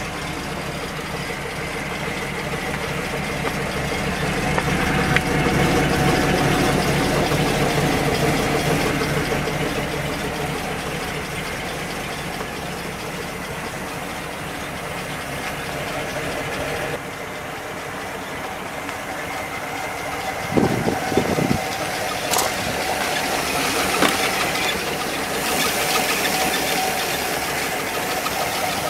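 PAZ-32053 bus's carburetted 4.7-litre petrol V8 idling steadily, with a few short knocks about twenty seconds in.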